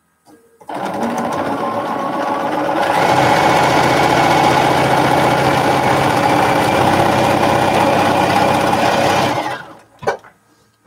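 Bernina electric sewing machine stitching in one long continuous run. It starts about a second in, gets faster and louder a couple of seconds later, and stops shortly before the end, with a short click just after.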